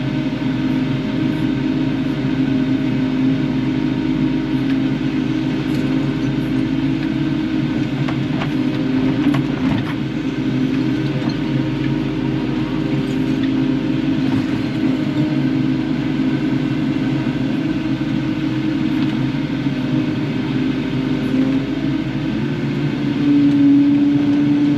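Kubota KX080-4 excavator's diesel engine running steadily as it digs, with a few knocks around the middle. Near the end the engine note steps up and grows louder.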